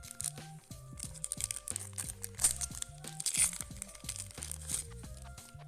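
Wax-paper wrapper of a 1988 Fleer baseball card pack crinkling and tearing in several bursts as the pack is opened, over background music.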